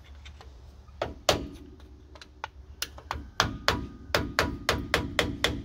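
Hammer tapping a screwdriver to drive out the front brake caliper's retaining pins on a 1993 Ford Bronco: two strikes about a second in, then a steady run of ringing metal blows, about four a second. The pins are original and stiff to move.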